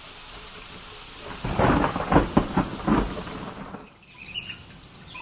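Steady rain with a clap of thunder. The thunder comes in about a second and a half in, crackles and rumbles for about two seconds, and is the loudest sound, then dies away to quieter rain.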